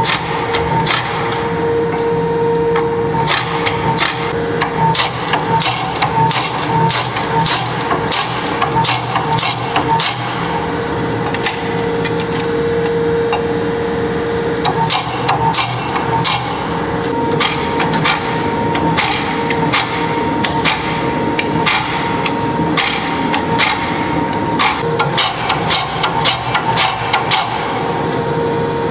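Power hammer striking a red-hot steel axe blank between its dies: repeated sharp blows in quick, irregular runs, over the steady hum of the running machine.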